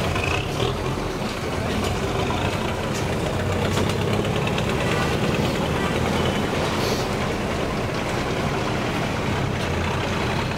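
Truck and motorcycle engines running in a slow line of traffic on a dirt road, a steady low rumble.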